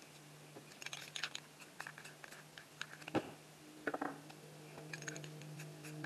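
Irregular small clicks and scratchy rustles of hands and tools handling materials over a wet spray-paint painting, over a steady low hum.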